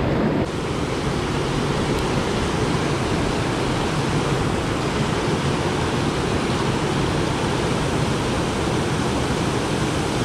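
River spillway water pouring over a concrete weir and churning in the pool below: a steady, even rush.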